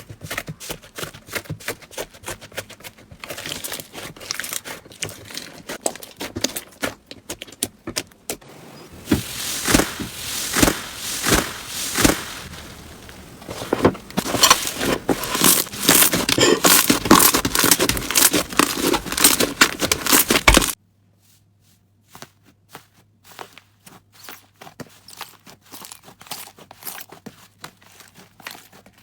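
Hands squeezing and stretching crunchy slime: a dense run of crackling, popping clicks, loudest in the middle. It cuts off abruptly about two-thirds through, and fainter clicking follows over a low steady hum.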